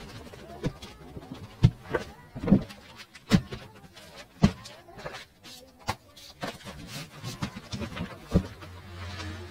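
Reams of copy paper and a cardboard box being handled and set down: a series of irregular thumps and knocks, the loudest in the first half.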